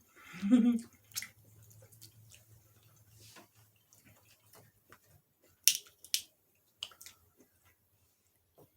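A person chewing close to the microphone, with a few sharp, wet mouth clicks and smacks; the loudest come about six seconds in. A short vocal sound comes at the very start.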